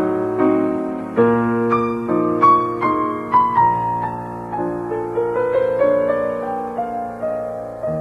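Background piano music: gentle chords with a melody, the notes struck about two to three times a second.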